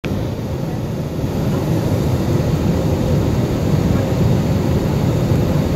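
Steady low engine and airflow noise inside the cabin of an Airbus A320-family airliner descending on its approach to land. It grows slightly louder after about a second.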